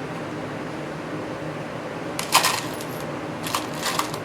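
Small metal model-motor parts clinking and rattling as they are picked through: a sharp clatter about halfway through and a few lighter clicks near the end, over a steady low hum.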